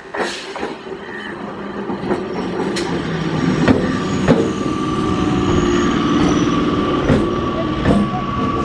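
Electric multiple-unit local train running past at close range, its sound growing louder in the first few seconds as the coaches come alongside. Wheels give sharp clacks over rail joints several times, and a steady high whine from the train joins about halfway through.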